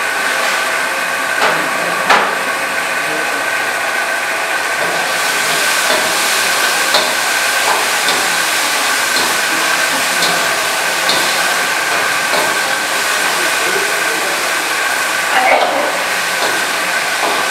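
Chicken frying in a wok over a gas burner: a steady sizzling hiss, broken by a few sharp clinks of the metal ladle against the wok.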